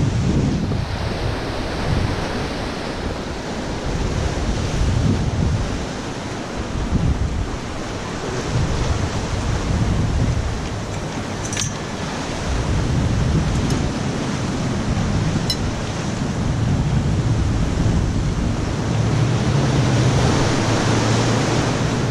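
Gusty wind buffeting the microphone over the wash of surf breaking against the pier, with two brief clicks about midway.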